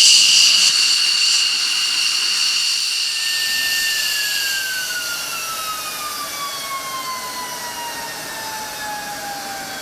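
Jet engine whine running down. The high-pitched whine fades, and from about three seconds in a lower whine falls steadily and slowly in pitch as the engine spools down.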